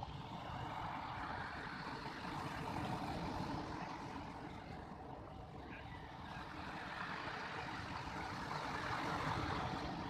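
Heavy surf breaking and washing up a pebble shore: a steady rushing that swells twice as waves come in.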